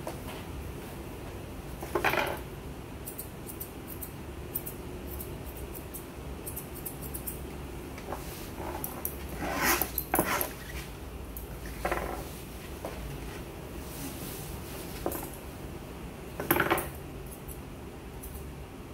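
Grooming shears snipping through a Pomeranian's coat in short, crisp cuts, over a steady low hum. A few louder short barks from other dogs break in about 2, 10 and 16.5 seconds in.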